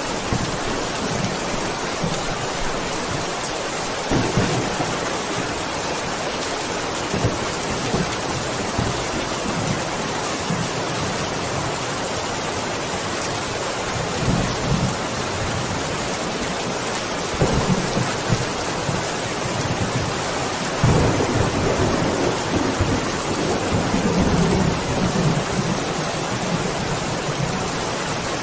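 Heavy rain falling steadily, with low rolls of distant thunder rumbling up several times, the longest and loudest in the last third.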